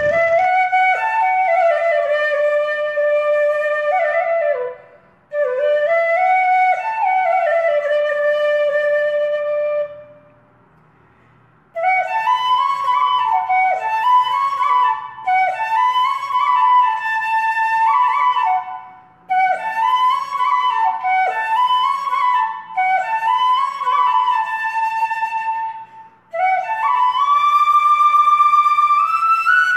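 Background music: a solo flute melody played in slow phrases, with a short silent break about a third of the way in.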